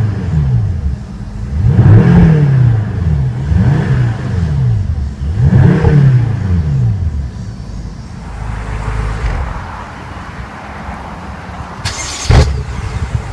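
BMW M6 Gran Coupe's 4.4-litre twin-turbo V8 free-revved while parked, about four quick blips rising and falling, then settling back to idle. About a second before the end comes a single sharp, loud thump.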